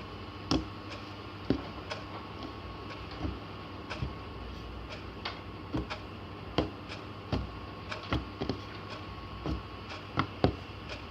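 Homemade slime being kneaded and squeezed by hand, making irregular sticky clicks and small pops about once or twice a second over a faint steady hum.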